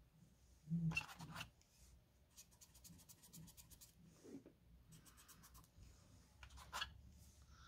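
Faint, intermittent scratching of a small brush rubbing chalk onto cardstock in short strokes, with a single click near the end.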